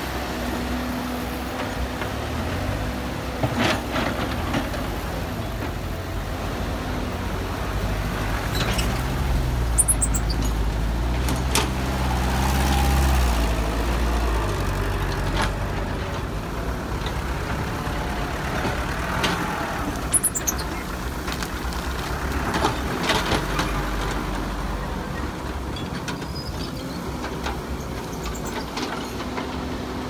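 Diesel engines of a tracked excavator and a dump truck running with a steady low rumble, revving up for a couple of seconds about twelve seconds in. Several metallic clanks and a couple of short hisses come now and then.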